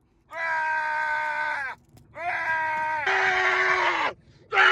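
Long drawn-out vocal screams from one voice: three sustained cries of about a second and a half each, each sliding down in pitch as it ends, the third louder and harsher than the first two.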